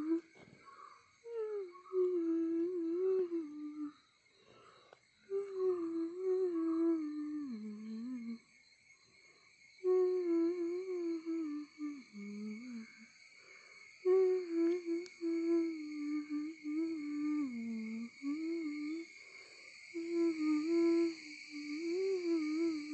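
A person humming a slow, wavering tune in phrases of a few seconds, some ending on a low note, with short breaks between them.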